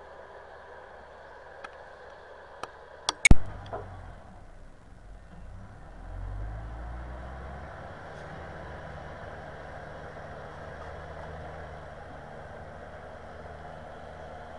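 Everun ER1500F mini wheel loader's engine running while it plows heavy wet snow, working harder from about six seconds in as it pushes the snow. A few sharp knocks come about two to three seconds in, the loudest near three seconds.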